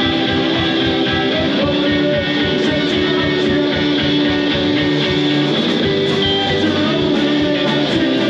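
Live rock band playing a song, guitars to the fore over a steady beat.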